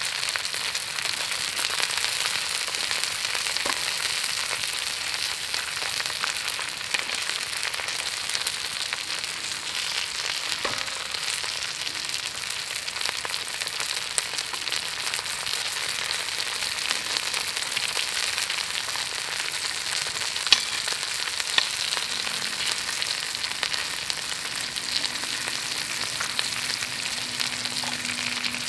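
Food frying in hot oil in a pan: a steady sizzle with fine pops and crackles, and two sharper clicks about a second apart a little past two-thirds of the way through.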